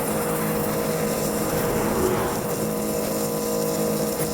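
Sun Joe SPX3000 electric pressure washer running steadily, its motor and pump humming under the hiss of the high-pressure water jet blasting into a pine 2x4.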